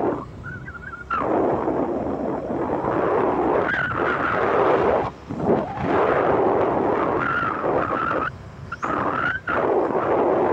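Wind rushing over the microphone together with a small motorbike's running noise while riding. It dips sharply several times, and a faint wavering higher whine shows through in the dips.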